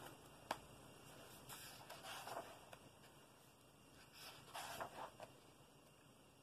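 Faint rustle of a paper colouring-book page being turned by hand, the clearest swish about four and a half to five seconds in, with a light tap about half a second in.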